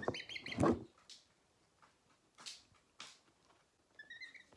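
Baby bird peeping: a quick run of high chirps at the start and a few short rising peeps near the end, with soft rustles in between.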